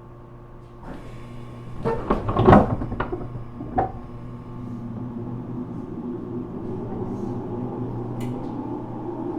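Inside a JR Kyushu 415 series electric motor car: a steady electrical hum at a standstill, then a run of clunks and bangs about two to four seconds in. After that the traction motors' whine begins and climbs slowly as the train starts to pull away.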